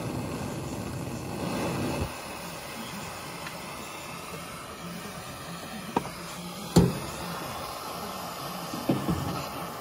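Handheld gas torch burning with a steady hiss of its flame while it heats the brake line fittings on a master cylinder. A few sharp knocks cut in, the loudest about seven seconds in.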